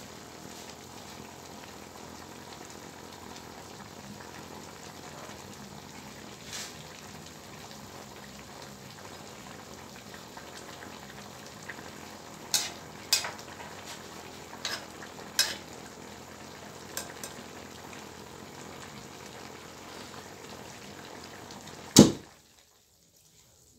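Mixed vegetables sizzling and bubbling in a little sauce in a metal wok. From about halfway, a metal spatula clinks against the pan several times, and near the end one loud clack, after which the sizzle cuts off.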